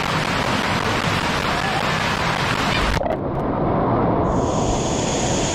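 Pool water sloshing and splashing right against a waterproof action camera sitting at the waterline, a steady rushing hiss. About three seconds in it abruptly turns muffled and dull, losing its treble.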